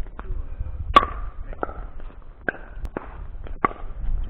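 Pickleball paddles striking the ball in a rally: about six sharp pops, each with a short ring, coming every half second to a second over a low rumble.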